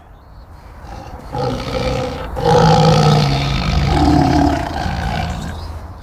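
AI-generated tiger roar sound effect, made by Adobe Firefly's Generate Sound Effects from a vocal imitation. A low growl builds into one long roar, loudest about halfway through, then tails off.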